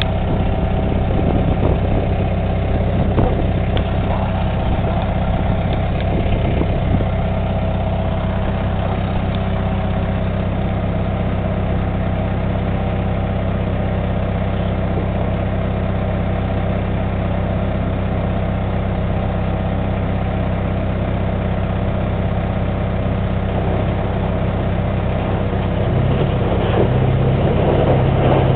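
Bulldozer's diesel engine running steadily, with a few faint knocks in the first several seconds. It grows louder and works harder near the end.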